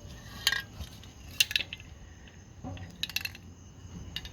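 A few light, sharp metallic clinks and taps, scattered irregularly, with a cluster about three seconds in, over a steady background of chirping insects.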